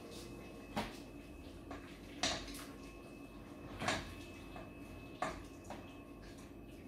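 Spatula knocking and scraping in a multicooker bowl while pork and carrots stewing in tomato are stirred. There are four sharper knocks, about one every second and a half, with softer clicks between them, over a faint steady hum.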